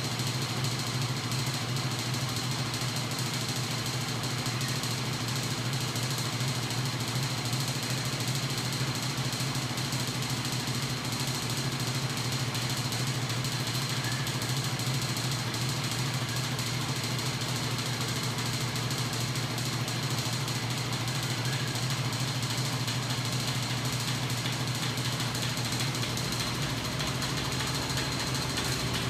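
Home-built magnet-and-crank oscillating machine, driven by a battery-powered electric motor, running steadily: a continuous mechanical hum from its spinning flywheels and rocking arm, with a faint steady high whine.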